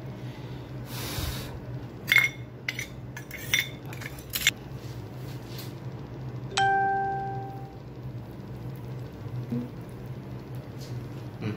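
Stainless steel bowl and metal tongs clinking several times as a piece of charcoal is set into the bowl on top of the rice in a pressure cooker. About six and a half seconds in there is one clear ringing ding that fades over about a second, over a steady low hum.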